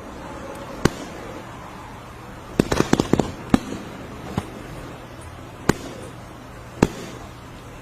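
Irregular sharp cracks or knocks, a quick cluster of them about three seconds in, over a faint steady low hum.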